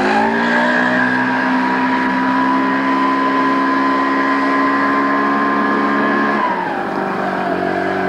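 Motor scooter engine under way, its pitch climbing as it picks up speed, holding steady, then dropping about six and a half seconds in as the throttle eases off.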